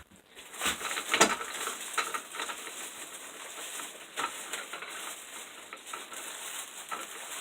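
Clicks, knocks and light rattling from handling a set of metal T-handle hex keys in their plastic stand, with a sharper knock about a second in.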